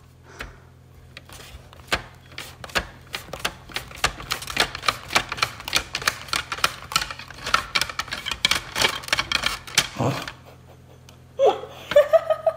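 Mandoline slicer worked quickly back and forth, zucchini on the hand guard clacking over the blade several times a second; the strokes stop about ten seconds in, followed by laughter.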